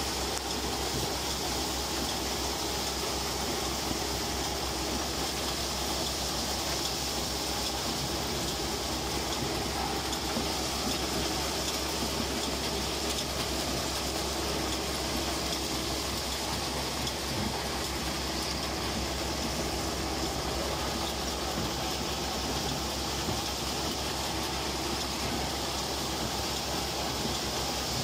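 Dry bean harvester running steadily as its pickup header takes in bean plants: a constant machinery noise over a steady low hum.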